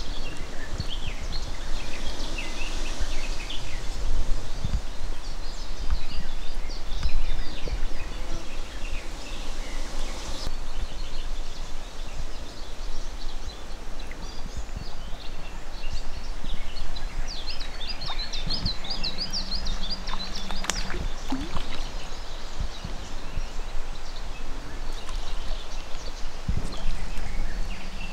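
Wind noise on the microphone with small birds calling and singing, a quick warbling phrase about two-thirds of the way through.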